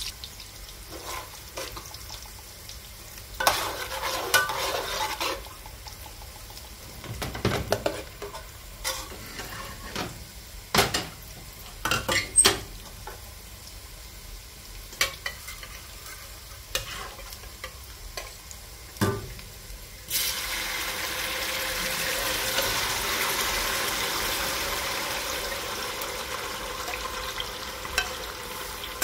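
Onions sizzling in hot oil in an aluminium pot while a metal slotted spoon stirs and knocks against the pot. About twenty seconds in, a loud, steady sizzle starts suddenly as blended tomato purée is poured into the hot oil.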